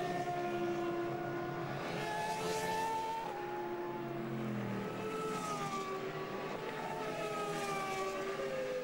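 Several Formula One cars' 3.0-litre V10 engines running at high revs through a corner, one after another, their engine notes rising and falling as the cars pass.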